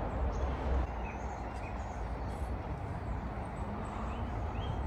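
Outdoor background: a low steady rumble with a few short, high bird chirps scattered through it.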